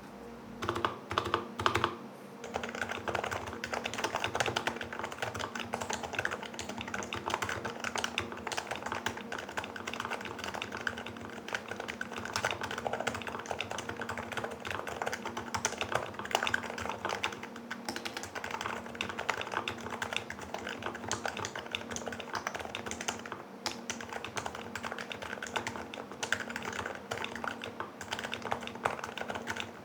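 Continuous fast typing on an HHKB Pro Classic with Topre switches, fitted in the firm top-mount H2H anodized housing: a dense, even stream of key strokes.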